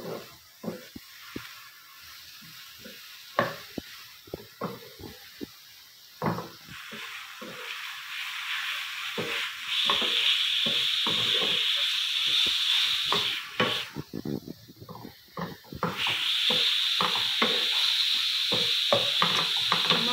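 Shredded cabbage and onions frying in oil in a nonstick pan, stirred with a wooden spatula: a run of taps and scrapes, with a sizzle that swells about halfway in, drops away briefly and comes back strongly near the end.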